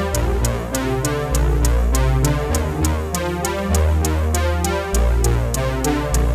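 Electronic background music: synthesizer over a deep bass line and a steady drum-machine beat.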